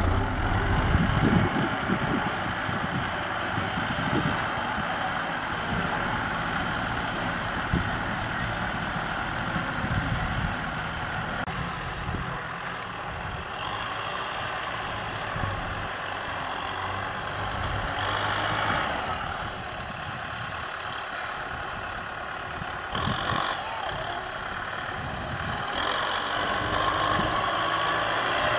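Kubota M6040SU tractors' diesel engines running steadily as they pull disc harrows through a grassy field.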